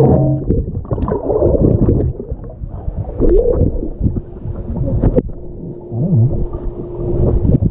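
Muffled gurgling and sloshing of water.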